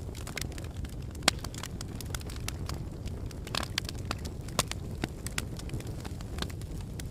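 Wood burning in a fireplace: logs crackling and popping in irregular sharp snaps over a low, steady rumble of flames, with one louder pop about a second in.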